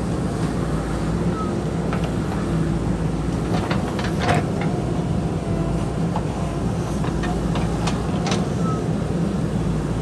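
JCB backhoe loader's diesel engine running steadily while the backhoe arm digs into the hillside, with several sharp knocks and clanks from the bucket and arm working soil and rock, bunched around four seconds in and again around seven to eight seconds in.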